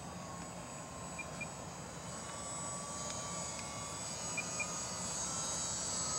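E-flite UMX Timber micro RC plane in flight: its small electric motor and propeller give a thin, high drone whose pitch steps up and down with the throttle, growing louder near the end as the plane comes closer. Two pairs of short high chirps, about a second in and again past four seconds.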